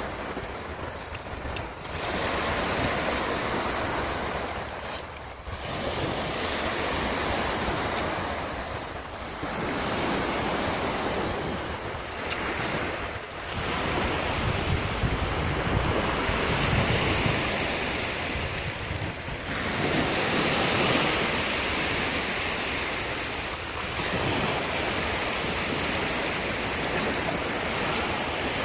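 Surf washing onto the beach in a steady rush of noise that swells and fades every few seconds, with wind buffeting the microphone.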